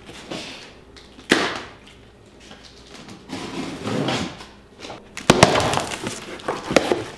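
Plastic packing strap on a cardboard box cut through with a sharp snap about a second in, then the box's cardboard flaps pulled open with rustling, crackling and scraping, loudest in the last two seconds.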